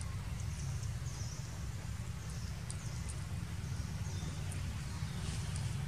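Outdoor ambience: a steady low rumble under short high chirps that repeat every second or so, with a few faint clicks.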